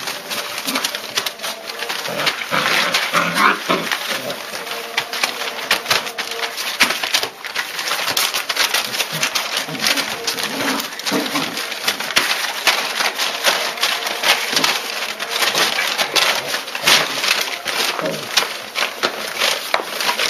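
A litter of young German shepherd puppies whimpering and squeaking, short high calls coming again and again over a constant busy clatter of small clicks and scrabbling.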